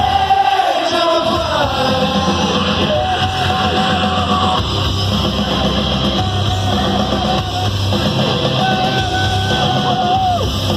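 Loud live rock music: a band with guitars and drums playing under a voice that sings long held notes.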